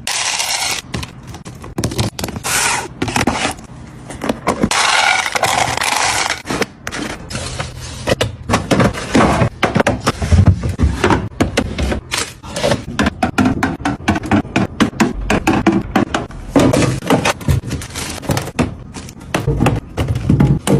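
Containers and food items being handled and set down: many short clicks and knocks, with stretches of rustling and scraping in the first several seconds.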